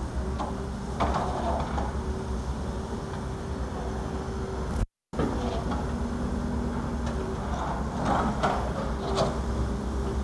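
Diesel engines of an excavator and dump trucks running steadily, with a constant hydraulic whine over the low rumble. Rock and debris clatter and scrape in short bursts about a second in and again near the end, and the sound cuts out briefly near the middle.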